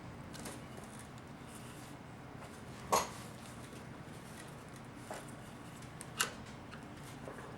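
Small metal parts of a 4L60E transmission pump clicking as they are handled and fitted by hand: a few light clicks and two sharper ones, about three seconds in and about six seconds in, over a faint steady hum.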